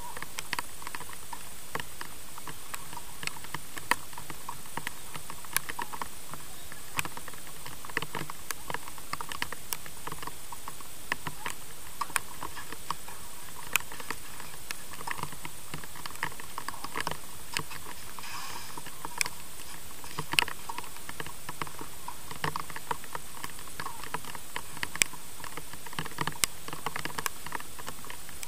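Tennis ball being struck by rackets and bouncing on the clay court during a rally: irregular sharp pops and taps, a few louder ones every second or two, over a steady hiss.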